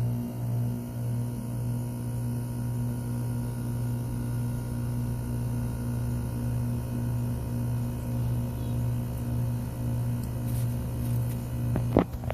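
York outdoor air conditioner/heat pump unit running just after startup: a steady low hum, wavering slightly at first, then holding even. A short click near the end.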